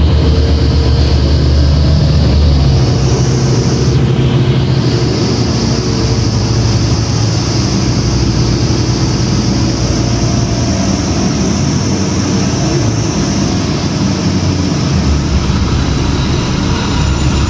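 Cummins ISL diesel engine of a 2006 New Flyer D40LF transit bus running under way, heard from inside the bus over steady road and tyre noise. The low engine drone is strong at first and eases off about three seconds in.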